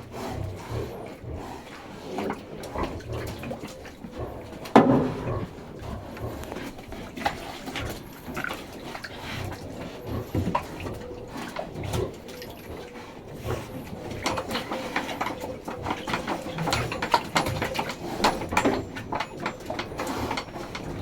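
Piétrain pigs grunting and moving about, with scattered knocks and one loud sharp knock about five seconds in.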